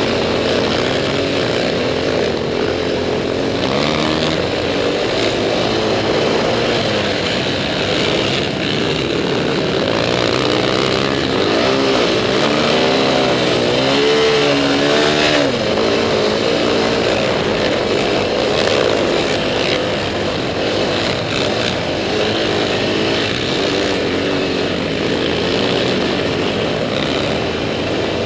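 Can-Am DS450X quad's single-cylinder four-stroke engine running hard through sand, revving up and down, with the clearest rise and fall of pitch about halfway through. Steady wind noise on the microphone runs under it.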